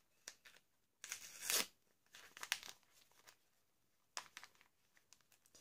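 Gift-wrapping paper crinkling and tearing in irregular short rustles as a small wrapped present is opened by hand, the loudest rustle about a second in, with a small click near the end.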